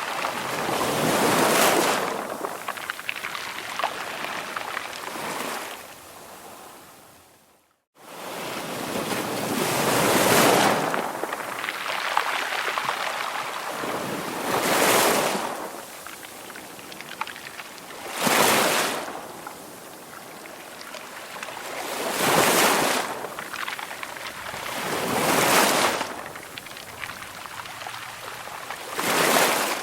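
Ocean surf: waves breaking and washing in one after another, each surge rising and falling over a few seconds, about eight in all. About eight seconds in the sound fades and cuts out completely for a moment before the surf starts again.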